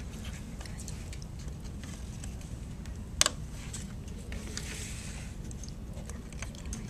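Small handling noises as wires are fastened to the metal latches of a bulb-holder disc: faint rustling and light clicks, with one sharp click about three seconds in, over a steady low hum.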